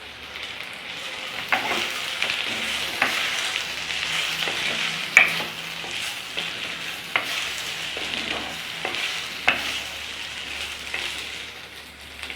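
Boiled raw banana pieces frying in sesame oil in a clay pot (manchatti), with a steady sizzle. They are being stirred, with sharp scrapes and knocks against the pot about once a second.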